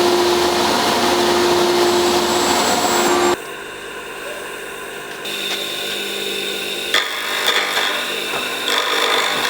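Woodworking power tool running loud with a steady whine, cut off abruptly about three and a half seconds in, followed by quieter tool noise with a thin high whine.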